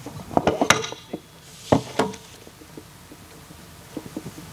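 Handling noise from a handheld microphone being set down on a table: a quick cluster of sharp knocks and clicks in the first two seconds, a few softer taps near the end, and steady room tone in between.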